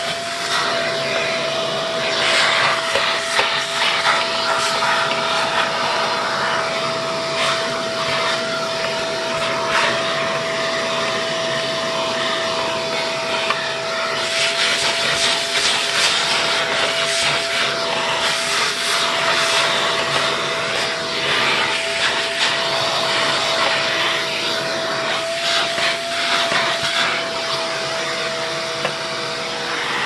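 Vacuum cleaner running steadily in use, a constant motor whine under the rush of air, the airflow noise swelling and easing at times as it is worked.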